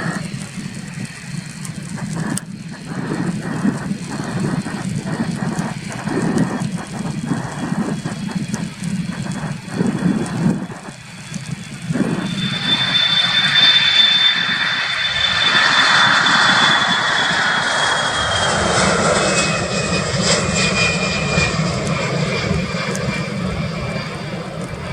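Boeing KC-135R Stratotanker's four CFM F108 turbofan engines at takeoff power, a steady low rumble that grows much louder about halfway through. A high whine then slowly drops in pitch.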